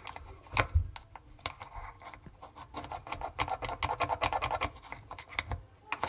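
Metal Allen key scraping and clicking against the plastic pressure-switch molding in a dishwasher sump as it is twisted back and forth. It is clearing out debris, grease and dirt that block the pressure switch. The sound is a run of irregular clicks and scrapes.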